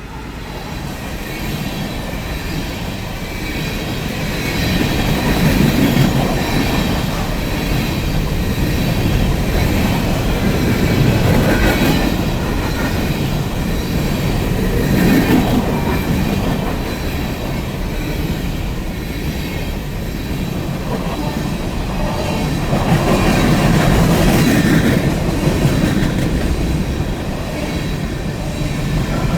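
Empty coal train rolling past: a steady rumble of steel wheels on rail with clacking over the joints and a faint wheel squeal at times, swelling and easing several times as the cars go by.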